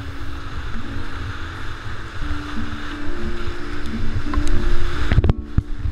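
Whitewater rapids rushing and churning close to the microphone, with wind rumbling on it, under a faint background music melody. The rushing cuts out briefly a little past five seconds in.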